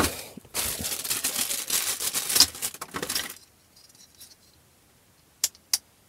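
Crinkling and rustling of plastic packaging and accessories being handled, stopping about three seconds in; then two short sharp clicks close together near the end.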